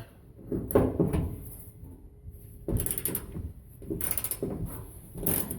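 Irregular clunks and scraping of hand tools and metal parts, from work on the truck's mounting bolts.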